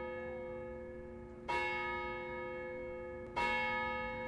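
The Graz Clock Tower's hour bell striking the time: two strokes about two seconds apart, each ringing on with a long, slowly fading hum, over the fading ring of the stroke before.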